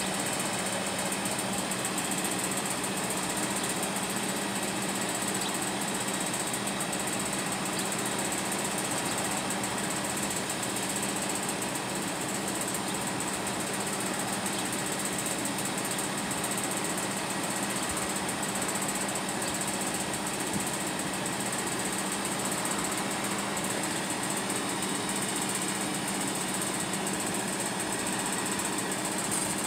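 An engine running steadily at an even speed, with a steady high-pitched hiss over it.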